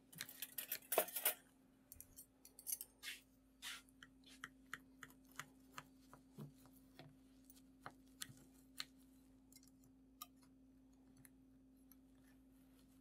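Knife cutting through a baked all-butter pie crust: a cluster of crisp crackles and scrapes in the first second or so, then scattered small clicks as the blade saws on through the crust.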